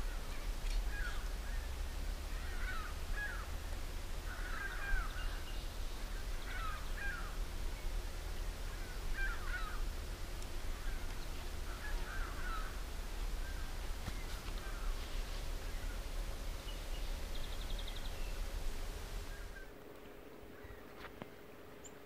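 Crows cawing repeatedly in short bursts over a low steady rumble; the calls thin out about halfway through, and the rumble drops away near the end.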